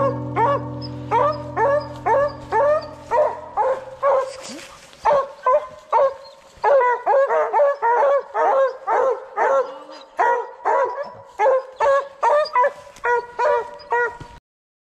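A hunting hound barking over and over in a steady chop, about two barks a second, as hounds bay at a tree where a raccoon is treed. Under the first few seconds, a low sustained music chord fades out. The barking cuts off suddenly near the end.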